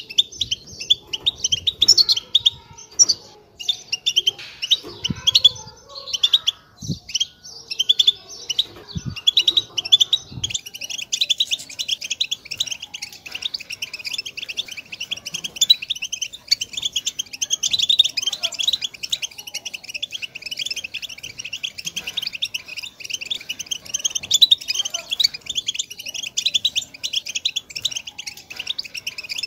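A flock of European goldfinches twittering and chattering, many quick high calls overlapping. It thickens into an unbroken chorus about ten seconds in.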